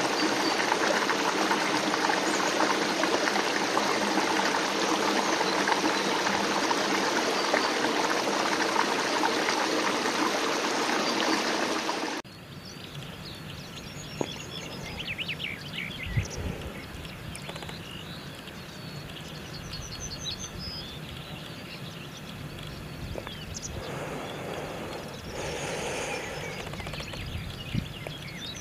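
Shallow rocky stream rushing and babbling as a steady hiss, cutting off suddenly about twelve seconds in. A quieter outdoor background follows, with a few short trills of small birds.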